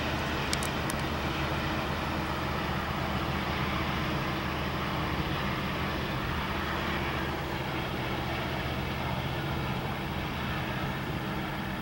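EMD SD70ACe diesel locomotive, its two-stroke V16 engine droning steadily, running as the rear distributed-power unit of a coal train moving away, with the rumble of the train on the rails. A few faint high clicks come about half a second in, and the sound eases off slightly near the end.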